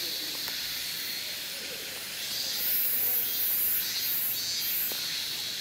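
Insect chorus in summer woodland: a high, shrill hiss that swells and fades in pulses of under a second.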